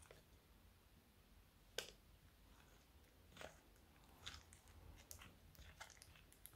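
Faint, scattered squishes and clicks of thick fluffy slime, made of glue and shaving foam, being stirred with a small spatula in a plastic cup. The loudest click comes about two seconds in.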